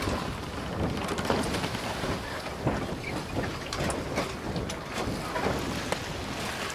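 Wind buffeting the microphone over open sea, with water splashing and many small crackles.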